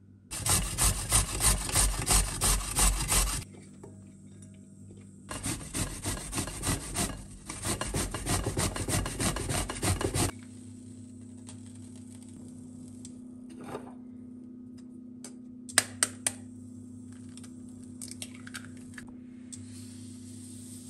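Carrot and apple grated by hand on a stainless steel box grater: two long runs of quick rasping strokes, about three a second, with a short pause between them. Later come two sharp taps close together and a few faint ticks.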